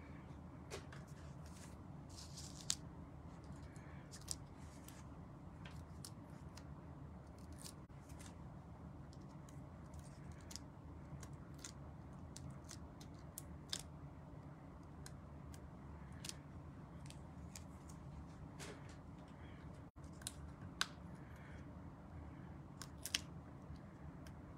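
Hands handling cardstock and small pieces on a craft mat: scattered light clicks and taps, about a dozen, over a steady low hum.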